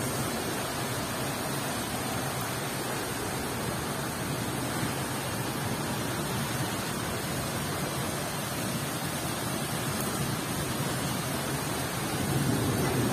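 Rain falling steadily as an even, dense hiss, growing a little louder near the end.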